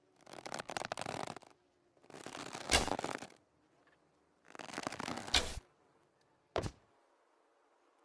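Bow and arrow sounds: three drawn-out rustling, scraping passes of about a second each, the last two cut by a sharp snap, then a single short sharp snap.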